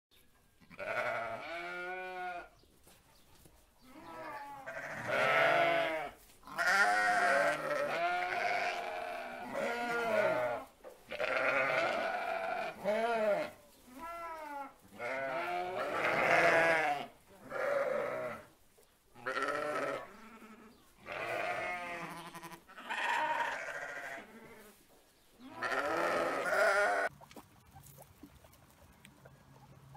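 Sheep bleating over and over, about a dozen separate baa calls with a wavering pitch, each a second or two long with short gaps between them. The calls stop a few seconds before the end.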